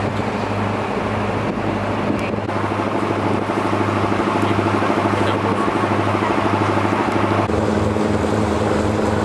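Boat engine running steadily under way, a low droning hum under a rushing hiss; the engine note shifts slightly about seven and a half seconds in.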